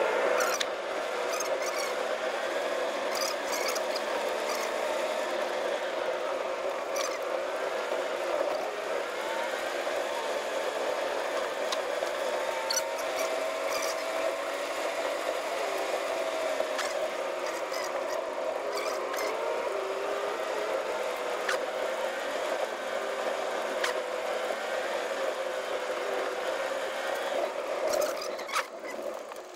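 Blizzard wind howling and whistling around a moving vehicle in a wavering, siren-like tone, with scattered sharp ticks of snow striking the windshield.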